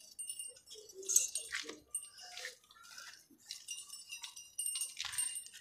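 Faint, scattered clinks and rustles from a goat's collar and tether (metal rings, snap hook and a small bell) as hands fumble at the rope to untie it.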